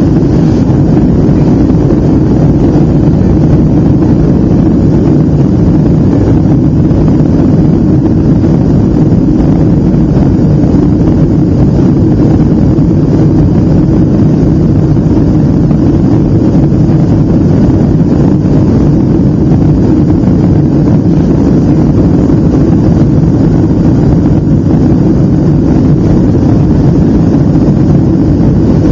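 Steady, loud cabin noise of a Boeing 757 climbing after takeoff: its twin jet engines and the airflow past the fuselage, heard from inside by a window seat as an even, low-pitched noise that does not change.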